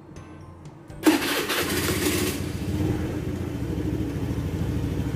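Motor scooter engine started about a second in, with a brief burst of cranking as it catches, then settling into a steady idle.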